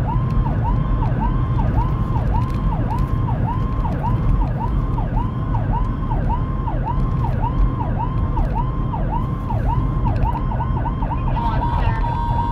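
Whelen 295SL100 electronic siren wailing in a rapid rise-and-fall, about two cycles a second, speeding up near the end and switching to a steady high tone in the last second. Heard over the vehicle's steady road and engine rumble.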